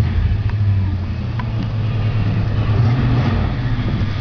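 1979 Pontiac Trans Am's 403-cubic-inch V8 running steadily through its dual exhaust, a deep, even low rumble.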